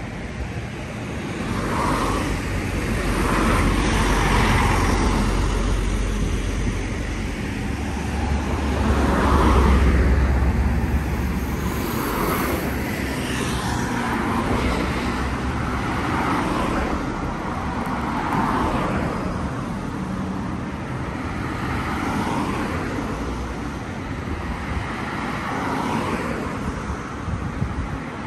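Street traffic: cars passing with a low engine and tyre rumble that swells about four seconds in and is loudest about ten seconds in.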